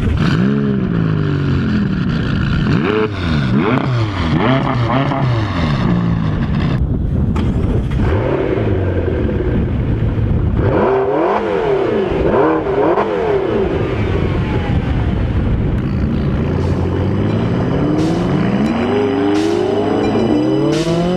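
McLaren 650S twin-turbo V8 accelerating hard and easing off again and again, its pitch climbing through the revs and falling back several times.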